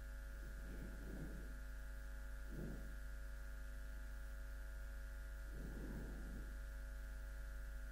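Quiet room tone with a steady electrical hum, broken by a few faint, soft rustles.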